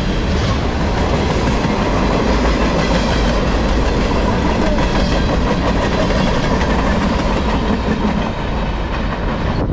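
Tank cars and boxcars of a CSX freight train rolling past at speed on steel wheels: a loud, steady rumble that eases a little near the end as the last cars go by.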